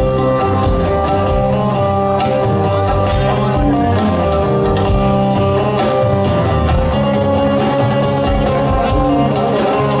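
A live rock band plays through a loud PA, with a drum kit, bass and electric guitar. Steady cymbal and drum strikes run under held guitar notes.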